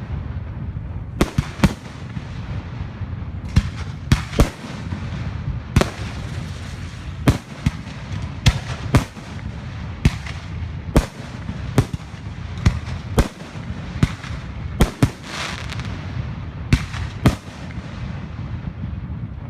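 Fireworks going off, a string of sharp bangs at about one to two a second over a low rumble, with crackling around three-quarters of the way through.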